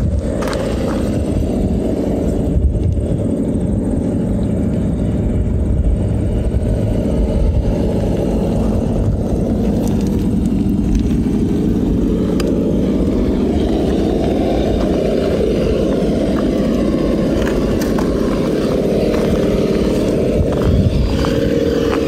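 Traxxas TRX-4 RC rock crawler's brushless motor and drivetrain running as it climbs a loose rock pile, with tyres crunching and scraping over the stones and a steady low rumble underneath.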